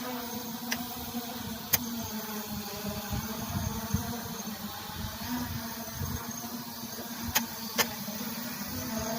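Holystone HS700 quadcopter drone's propellers humming steadily in flight, with wind buffeting the microphone in gusts and a few sharp clicks.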